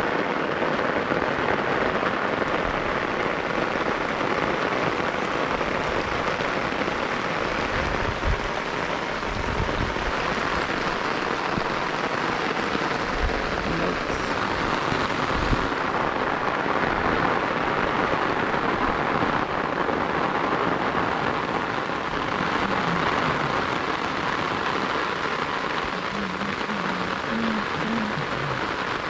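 Steady heavy rain falling on outdoor surfaces, an even hiss throughout. A couple of brief low thumps stand out about eight and fifteen seconds in.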